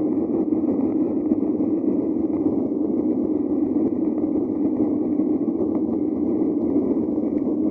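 Steady roar of a jet airliner's engines and the rushing air, heard from inside the cabin.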